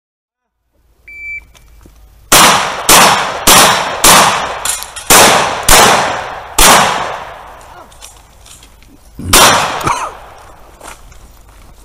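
A short electronic shot-timer beep, then a string of loud gunshots: seven in quick succession over about four seconds, and one more a few seconds later.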